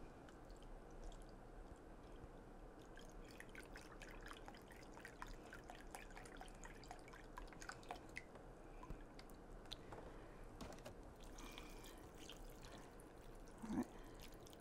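Vegetable broth poured from a carton into a measuring cup: a faint liquid trickle with small ticks and taps. Near the end there is one short, louder pour as the cup is tipped onto the chili ingredients in the slow cooker.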